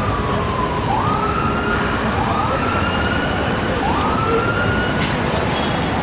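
Emergency-vehicle siren cycling over and over, each cycle jumping up quickly and then sliding slowly down, about every one and a half seconds. Underneath is the steady, dense din of busy city traffic.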